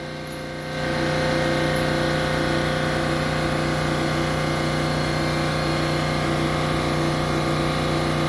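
A steady machine drone with a fixed pitch, swelling louder about a second in and then holding constant.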